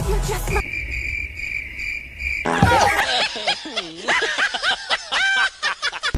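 Cricket chirping for about two seconds, a steady high trill, cut off abruptly and followed by a comic voice swooping up and down in pitch.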